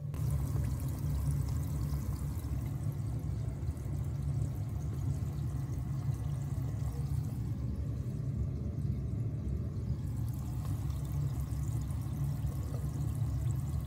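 Potato chips bubbling steadily in hot oil as they blanch, the oil at about 110 degrees for the first, low-temperature frying stage.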